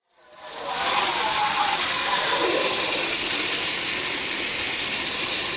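Tap water running steadily, with ingredients being rinsed under it. It fades in over the first second, then keeps a constant rush.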